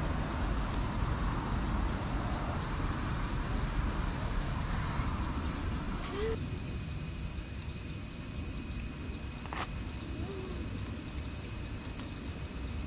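A steady, high-pitched chorus of insects trilling without a break. A short chirp and a single click stand out near the middle.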